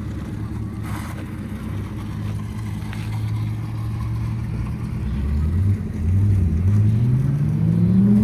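A car engine running at a steady low pitch, then revving up from about five seconds in, its pitch climbing as the car accelerates.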